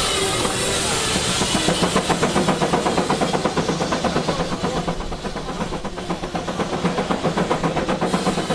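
Case steam traction engine running with rapid, even exhaust chuffs, with a strong hiss of steam in the first couple of seconds.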